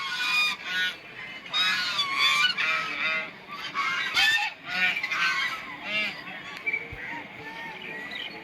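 Geese honking, many short calls overlapping one another, thinning out near the end.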